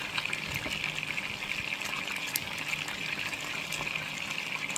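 Marinated chicken halves pan-frying in shallow oil, sizzling steadily with scattered small crackles and pops.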